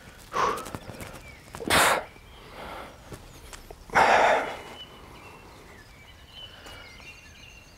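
A man breathing hard through a set of slow chin-ups: four forceful breaths out, the loudest about two and four seconds in.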